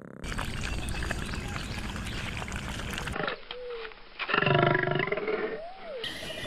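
Lion vocalizing: a loud call with a steady pitch lasting about a second, a little past halfway, with short gliding tones before and after it. Before that come about three seconds of rough, noisy sound.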